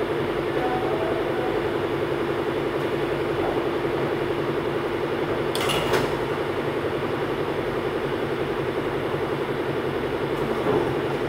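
Injection moulding machine, a Ferromatic Milacron Magna T Servo 200, running with a steady hum that has a fast flutter in it. A single sharp clack about six seconds in, as the moulded plastic part comes free of the mould.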